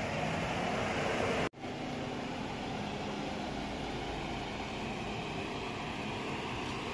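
Steady machine-like noise, like a running fan or motor, with a faint steady hum under it. It cuts out abruptly for a moment about a second and a half in, then resumes.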